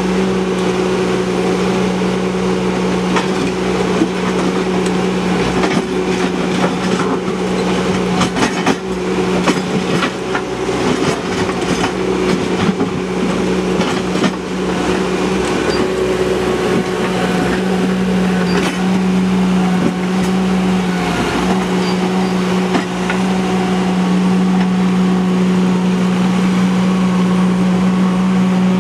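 Ditch Witch SK900 mini skid steer's engine running steadily as it digs, with clanks and scrapes of the bucket working rocky soil, most frequent in the first half. The engine note dips briefly about three-quarters of the way through.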